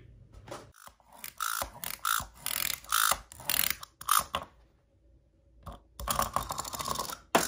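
Clockwork mechanism of a small Pikachu wind-up toy clicking and ratcheting in short bursts over the first few seconds, then a faster, denser run of clicks about six seconds in.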